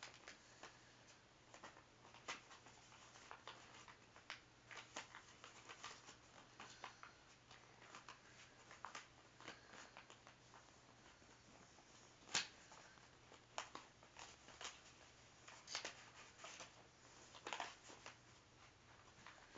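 Faint rustling and crinkling of a paper square being folded and creased by hand, in scattered small clicks, with one sharper tick about twelve seconds in.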